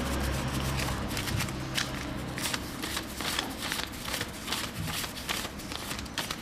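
Paper euro banknotes being counted by hand: a quick, steady run of crisp flicks and rustles as each note is snapped off the stack.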